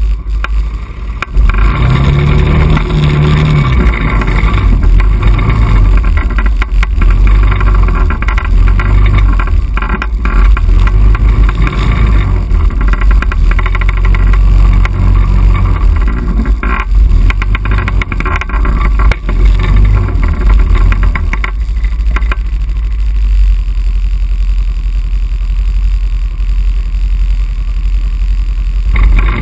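ATV engine running on a muddy trail, revving up and falling back again and again with the throttle over a heavy low rumble, then holding steadier near the end.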